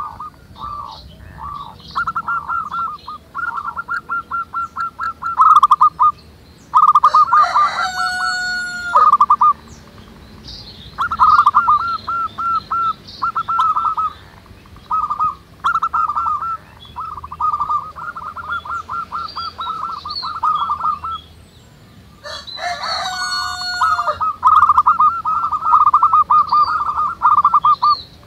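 Zebra doves (perkutut) cooing in repeated rapid, stuttering phrases of short notes, several birds overlapping. Twice, about seven and twenty-two seconds in, a louder drawn-out call from another bird cuts across them.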